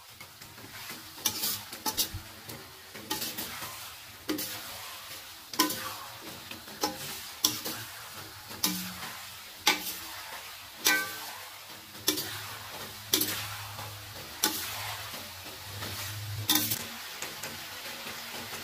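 Metal spatula scraping and knocking against a wok while chicken and small potatoes are stir-fried, about once a second, over a steady sizzle of the frying food.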